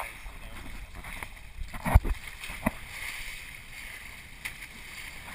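Water rushing and splashing along the hull of a small sailing proa under way in choppy water. A sharp thump about two seconds in is the loudest sound, with a lighter knock a moment later.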